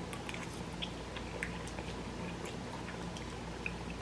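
Faint eating sounds: soft mouth clicks and smacks of a person chewing noodles, scattered irregularly over a low steady hum.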